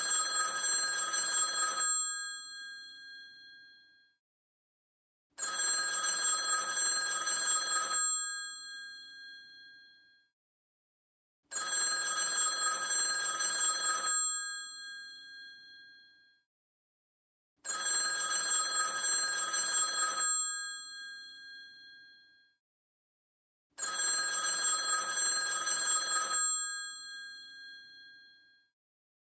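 Vintage telephone's bell ringing in repeated bursts of about two and a half seconds, roughly every six seconds, each ring fading away in a ringing tail before a short silence.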